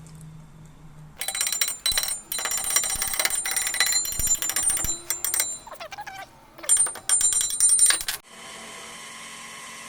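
Angle grinder grinding steel weld seams, in uneven spurts with a high ringing whine. It stops abruptly about 8 seconds in, and a steady, quieter machine hum with a fixed whine follows, typical of a milling machine spindle running.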